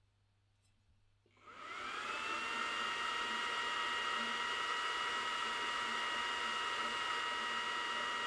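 Cooling fan of an xTool D1 Pro 20W laser module spinning up a little over a second in with a rising whine, then running steadily with a whirring hiss as the laser engraves metal.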